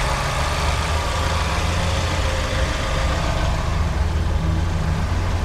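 A 2021 Lada Largus van's 1.6-litre four-cylinder petrol engine idling steadily with the bonnet open, an even hum with no change in speed.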